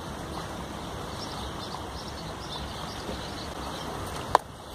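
Steady wind noise on the microphone over moving river water, with faint high chirps scattered through it. About four seconds in comes one sharp click with a brief ring.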